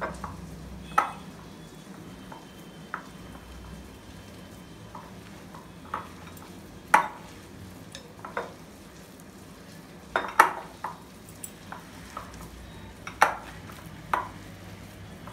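Grated cabbage, flour and cornflour being mixed and squeezed by hand in a glass bowl, with irregular sharp clinks against the glass every second or so, over a low steady hum.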